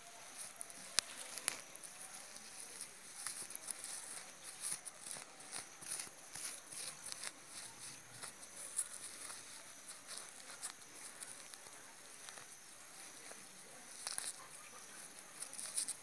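A bare hand scraping and digging through loose, dry soil and fine roots around a sweet potato tuber, making irregular soft scratches and rustles.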